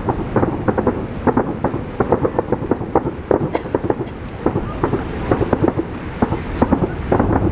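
Aerial fireworks bursting in quick succession: a dense, continuous run of bangs and crackling pops.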